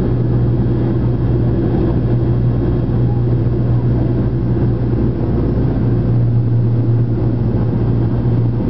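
Aircraft cabin noise in flight: a loud, steady drone of engines and rushing air with a strong low hum, heard from inside the cabin.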